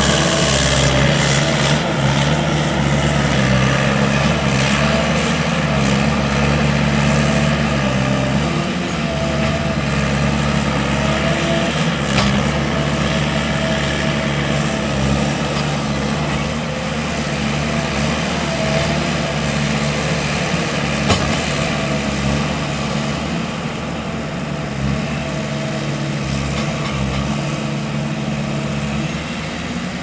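Gehl SL 5640 skid steer loader on its VTS tracks, its engine running steadily under load as it works across a dirt pile, with a few short knocks. The engine note shifts a little in pitch and grows quieter over the last few seconds.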